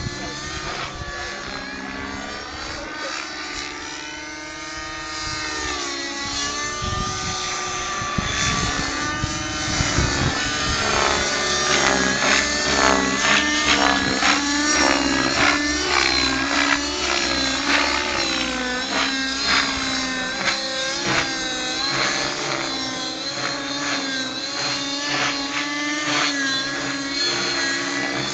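Velocity 50 nitro RC helicopter with a YS 56 glow engine flying aerobatics: the engine and rotor sound rises and falls in pitch with the manoeuvres, dipping and climbing once early on, then growing louder with quick pitch swings through the rest.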